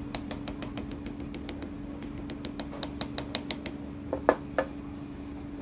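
Quick metallic clicking, about six clicks a second with a slight ring, as the small cast-iron vise's parts are worked together during reassembly, then three heavier knocks a little past four seconds.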